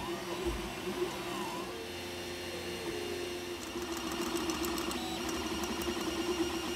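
A 3D printer printing: its stepper motors whine in pitches that slide up and down as the print head moves, over a steady hum, with fine rapid ticking in the second half.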